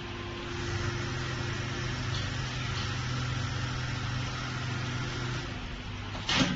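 Jooke CNC template sewing machine running, a steady mechanical hum as its drive carries the template under the sewing head, with a short sharp burst of noise near the end.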